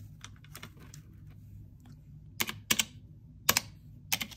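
Keys of an Azio keypad calculator pressed, about five sharp clicks in the second half with a few fainter taps before them, entering a banknote count into a running total.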